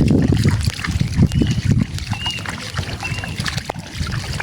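Water sloshing and splashing with scattered knocks, as in hands and gear working in shallow water. Three short high chirps come about a second apart in the middle.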